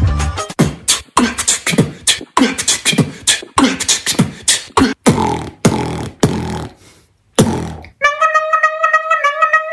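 Human beatboxing recreating an Indian bhangra-style beat: vocal kick and snare hits at about two a second, with a short break near the end. About eight seconds in, a pitched vocal melody line takes over, sung through a hand cupped at the mouth.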